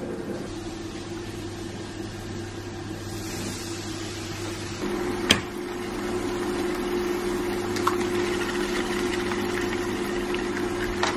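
Ham and eggs sizzling in a frying pan on an induction hob, a hissing sizzle that fills in through the second half with a small crackle, over a steady low hum. A sharp click about five seconds in.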